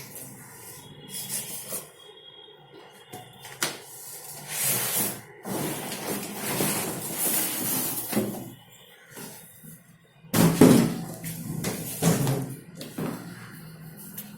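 Washing machine being handled: irregular knocks and clunks, like a lid or door opening and shutting, with stretches of rushing noise in between.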